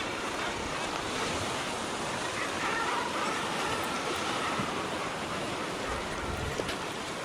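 Sea surf washing steadily against the coast, with wind buffeting the microphone.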